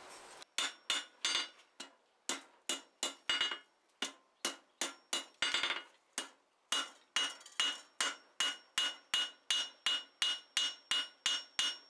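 Hand hammer striking hot steel hinge stock on an anvil face: a steady run of blows, about two to three a second, each with a short metallic ring, with a brief pause about six seconds in. The smith is shaping the hot end of the hinge strap before rolling the barrel.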